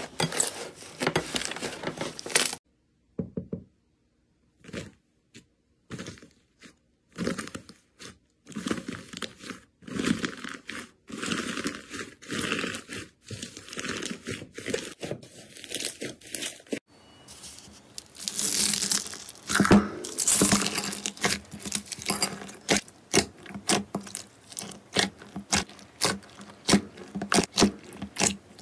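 Slime being squeezed, stretched and pressed by hand, giving dense, irregular crackles, pops and tearing sounds. There is a short break of near silence about three seconds in.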